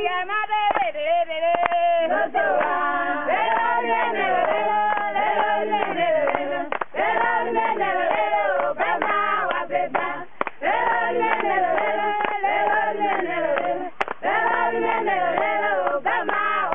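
A group of men and women singing together unaccompanied, in continuous choral phrases.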